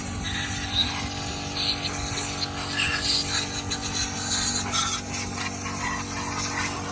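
A steady machine hum, like an engine or motor running, with scattered clinks and clatter of tools on metal over it.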